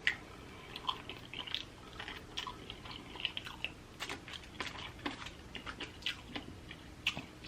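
A person chewing and eating food close to the microphone, with many small, irregular mouth clicks and crunches.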